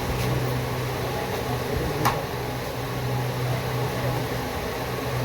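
Steady hum and rush of air from a hot air rework station blowing on the board to melt the solder under the charging jack, with one sharp click about two seconds in.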